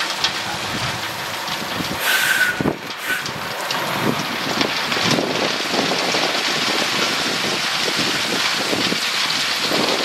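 Crushed stone pouring out of the raised steel body of a tipper semitrailer onto a pile: a steady, dense rattling hiss like heavy rain, with the truck running underneath. About two seconds in, a short high squeal sounds twice.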